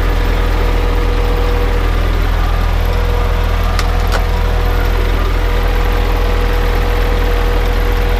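Scania R truck's diesel engine running steadily, a low drone heard inside the cab, with two short clicks about four seconds in.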